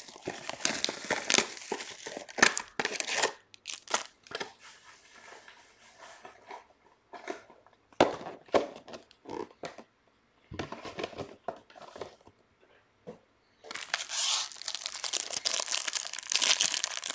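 Trading card pack wrappers crinkling and tearing, in two spells: for about the first three seconds and again for the last three or so, with scattered light clicks and rustles of cards being handled in between.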